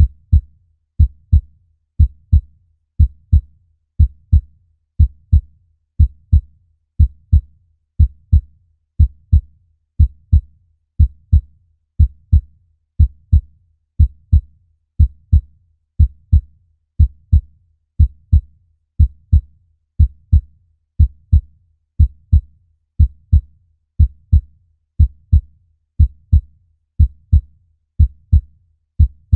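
Human heartbeat beating steadily, a deep double thump (lub-dub) about once a second.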